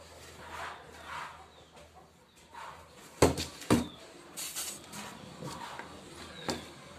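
Cardboard carton being handled, rustling and scraping, with two loud knocks a little over three seconds in. Then more rustling and a click as the water heater is lifted out of the box.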